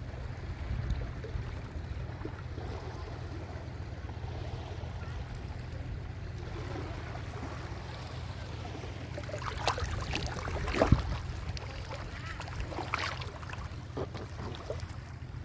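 Small sea waves washing onto the shore, over a steady low rumble of wind on the microphone. About ten seconds in there is a short spell of louder, sharper splashing, loudest a second later.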